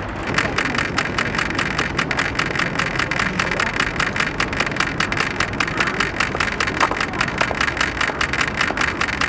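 Mechanism of a home-made kinetic sculpture built from an old Walkman, a mounting rail and a plastic hand, running at its faster second speed with a steady, rapid clicking rattle.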